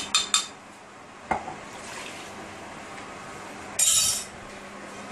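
A metal teaspoon clinks against a ceramic mug as chicken stock is stirred: a few quick clinks at the start and one more just over a second in. About four seconds in there is a brief rush of liquid as the stock is poured.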